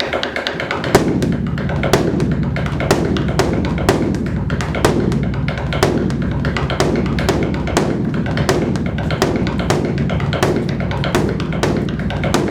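A large drum beaten with sticks in a steady rhythm, about two to three sharp strokes a second over a deep, sustained boom. The beat grows fuller about a second in.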